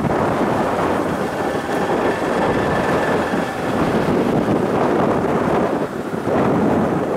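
Steady rush of wind over the microphone of a moving motorcycle, mixed with the motorcycle's engine and tyre noise.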